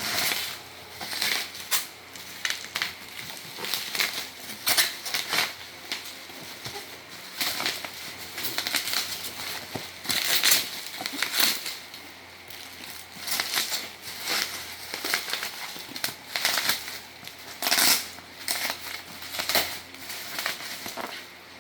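Packaging being handled and unwrapped: irregular crinkling and rustling of wrap and box, in uneven bursts.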